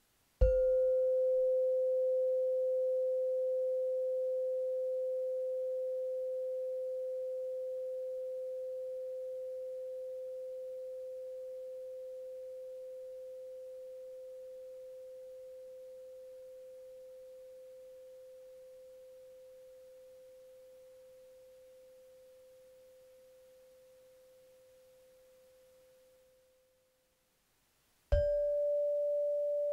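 The lowest, longest metal bar of a set of chakra chimes is struck with a mallet and rings as a single pure tone with faint higher overtones, fading slowly and evenly for about 26 seconds until it dies away. Near the end the next bar up is struck, starting a slightly higher tone. The chimes are played in order from the root chakra upward.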